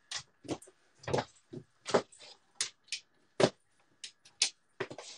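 A string of irregular knocks and clicks, about two to three a second, from someone moving about and adjusting the room lights.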